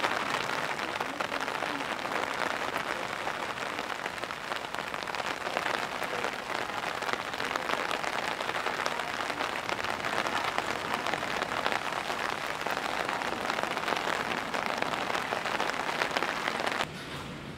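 Heavy pouring rain: a steady, dense patter of drops that cuts off suddenly near the end.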